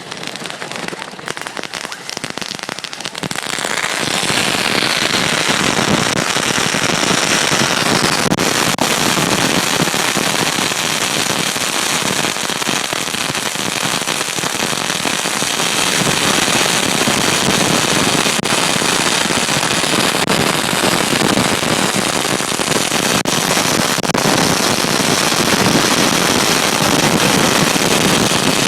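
A lit firework crackling, sparse sharp pops for the first few seconds, then a dense, steady, rain-like crackle that runs on loudly.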